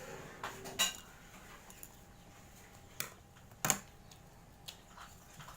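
A few short clinks of cutlery against a plate, about a second in and twice more between three and four seconds in.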